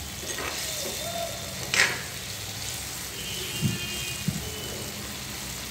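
Pabda fish frying in oil in a pan: a steady sizzling hiss, with a brief spatula clatter about two seconds in.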